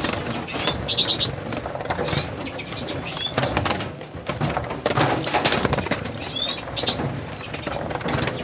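Small finches (siskins and redpolls) fluttering and flapping their wings in an aviary flight as they are being caught, with clusters of short, high chirps about a second in and again near the end.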